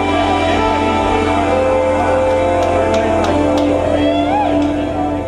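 Jazz-fusion band of keyboards, electric guitar, electric bass and drums playing live: long held notes under a lead line that bends up and down in pitch, with a few sharp cymbal-like hits in the middle. The music drops in loudness near the end.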